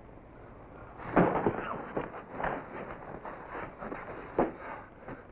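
A scuffle: a loud thump about a second in, then a run of knocks, scrapes and thuds from bodies and a wooden crutch struggling, with another sharp thump near the end.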